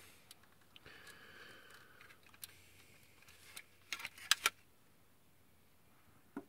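Hard plastic parts of a transforming combining toy robot clicking and knocking as they are handled and moved, with a quick cluster of clicks about four seconds in and a single click near the end.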